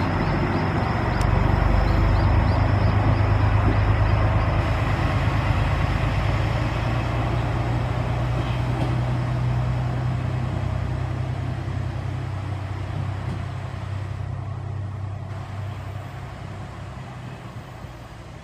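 JR Shikoku 1000 series diesel railcar's engine running as the single car pulls away. It is a low, steady drone that swells about two seconds in and then fades as the car draws off along the track.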